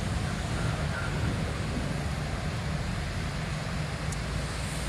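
Steady low rumble as a small cargo ship is driven under its own power onto the beach to be run aground, mixed with wind buffeting the microphone.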